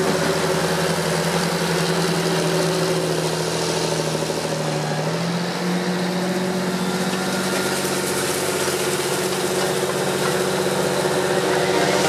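John Deere 8330 tractor's six-cylinder diesel engine running steadily under load while pulling a disc cultivator through the soil. Its pitch rises slightly about halfway through.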